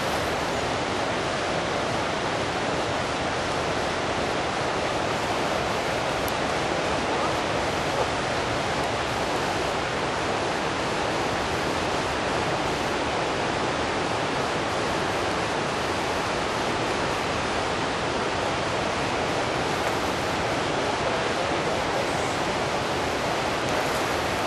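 Steady rush of a fast-flowing river's current, an even hiss with no breaks.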